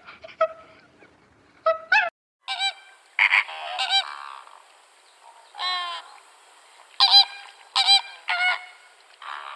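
Geese honking: a string of short honks, some in quick pairs or triples, with an abrupt change of background about two seconds in where one clip gives way to another.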